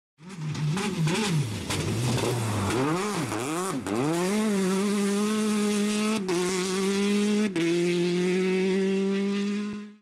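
Racing car engine revving: several quick blips up and down, then a rise to high revs held steady, with the pitch dropping slightly twice like short gear changes. The sound stops sharply just before the end.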